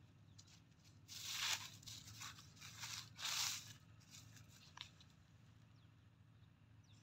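Dry grass and leaf litter rustling and crunching under a hand scraping through the ground cover, in two short bursts about a second in and about three seconds in, with a few light crackles between.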